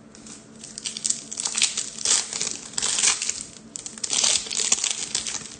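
Foil wrapper of a Topps trading-card pack crinkling and tearing as it is opened by hand, in an irregular run of rustles and crinkles.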